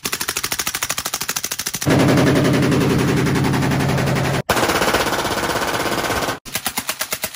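Full-auto gunfire from several guns in turn. First a suppressed Arsenal SLR-107 AK rifle firing subsonic rounds, about ten shots a second. About two seconds in comes a louder, denser burst from an unsuppressed Krinkov-style AK pistol. Past four seconds a Glock 18 machine pistol fires a very fast burst, and near the end the suppressed rifle fires again.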